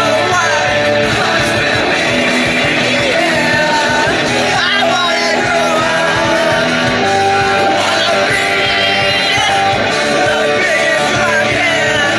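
Rock song with electric guitar and singing, played loud and steady.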